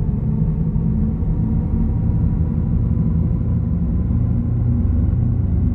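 Audi e-tron GT's synthesized interior e-sound in dynamic mode, as heard inside the cabin: a deep, steady electronic hum over a low rumble while the car accelerates gently.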